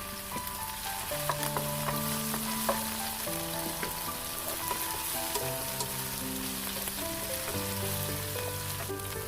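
Food sizzling in a hot frying pan as it is stir-fried, with a steady hiss and scattered clicks of a utensil against the pan.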